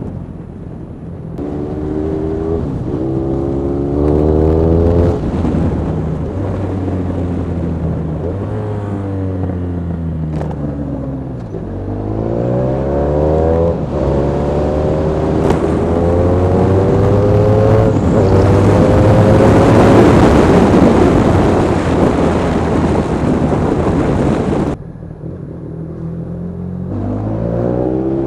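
Honda VFR1200F's 1200cc V4 with a straight-through aftermarket exhaust, accelerating hard through the gears: the engine note climbs and falls back at each shift, with wind rushing over the microphone as speed builds. About 25 s in the throttle closes and the note drops away, then it revs up again near the end.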